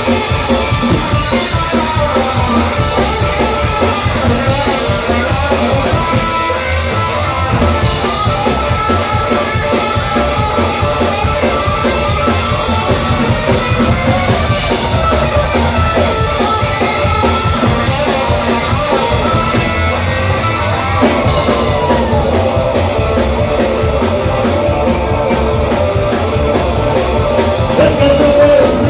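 Live psychobilly band playing loudly through a club PA: upright double bass, electric guitar and a drum kit with a fast beat, with a singer's vocals.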